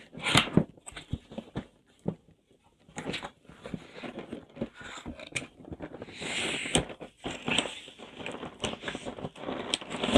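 Cardboard box being handled and opened on a table: scattered light knocks and taps, then from about six seconds in a longer rustling scrape of cardboard against cardboard.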